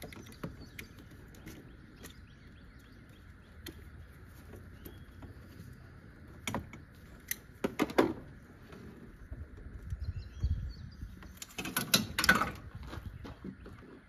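Hand work on a stuck rubber hose that has been cut to free it from its fitting: scattered clicks and knocks of tools and parts, then a burst of scraping and rattling near the end as the hose is twisted and pulled.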